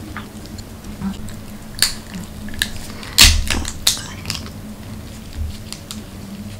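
Gloved hands pulling apart a marinated crab, its shell cracking in scattered sharp snaps. The loudest crack comes about three seconds in.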